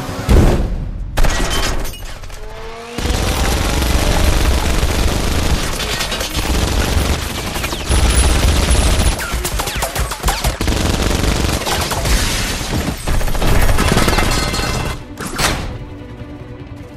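Rotary multi-barrel minigun firing one long, unbroken stream, starting about three seconds in and stopping a couple of seconds before the end. A couple of sharp bangs come before it.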